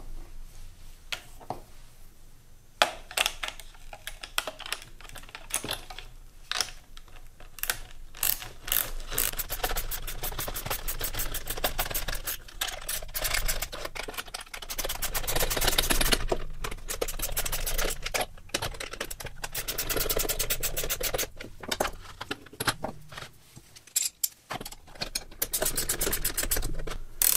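Ratcheting wrench clicking in quick runs as bolts and nylon-insert lock nuts are tightened, between single clicks and knocks of metal tools being handled.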